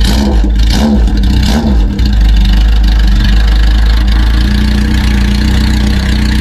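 Motorcycle engine through a Tokyo Tekkan aftermarket exhaust, blipped in a quick rhythmic rev pattern about once every 0.8 s for the first two seconds, then held at steady raised revs.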